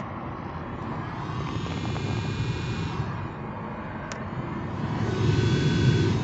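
Newly fitted Fiat Punto Evo heater blower fan running as the fan-speed knob is turned up through its settings: a steady rush of air with a faint whine, louder from about five seconds in at the higher speed.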